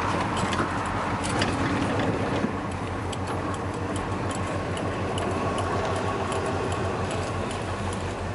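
1972 Oldsmobile Cutlass 442's V8 running at low speed, heard from inside the cabin, with a steady light ticking over it.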